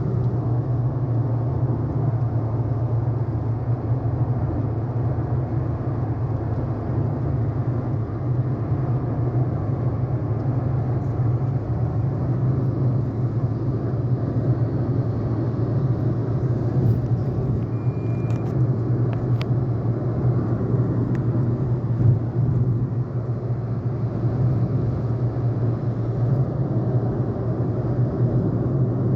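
Steady low rumble of a moving vehicle: engine and road noise without a break, with a few faint short ticks near the middle.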